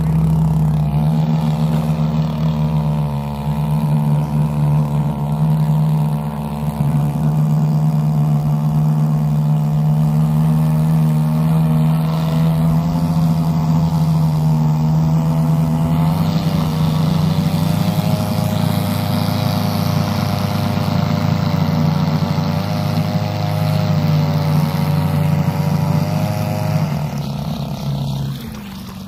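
Two-stroke brush-cutter engine rigged as a long-tail boat motor, running steadily under load as it pushes a small boat, its pitch wavering a little; it drops off about a second before the end.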